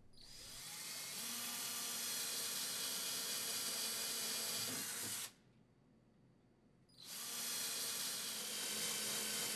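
Cordless drill boring pilot holes into a wall, in two runs. The first builds up over about a second, runs steadily and stops suddenly about five seconds in; the second starts after a pause of under two seconds.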